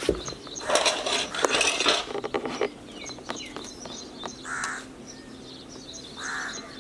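Crows cawing, a harsh run of calls about a second in and two short single caws later, over small birds chirping.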